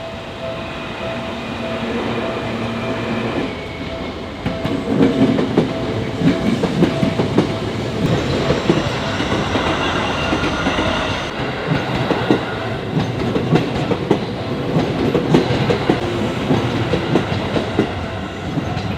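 Seibu Railway electric train passing over a level crossing, its wheels clacking over the rail joints, more densely from about five seconds in. A steady alarm tone, typical of the crossing's warning bell, sounds along with it.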